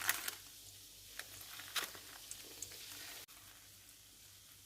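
Faint sizzling of yeast-dough donuts frying in oil, with a few light clicks. The sound cuts off suddenly about three seconds in, leaving a fainter hiss.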